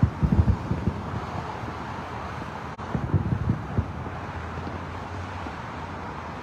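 Distant aerial fireworks shells bursting as a quick cluster of low booms in the first second and again about three seconds in, over a steady wash of highway traffic.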